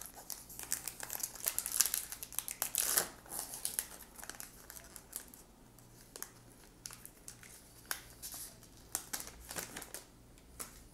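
Allen & Ginter baseball card pack wrapper crinkling as it is torn open and handled: a dense run of crackling over the first three seconds or so, then scattered crinkles.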